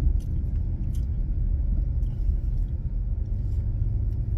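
Steady low road rumble heard inside the cabin of a moving car, from engine and tyres, with a couple of faint clicks about a second in.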